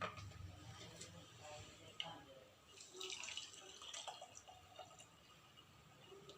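Faint dripping and trickling of blended papaya leaf juice running through a strainer, with a few soft ticks.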